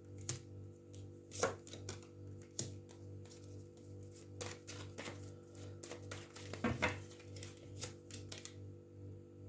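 Tarot cards being handled and laid down on a table: irregular light taps and slaps, with a couple of louder ones, over quiet background music.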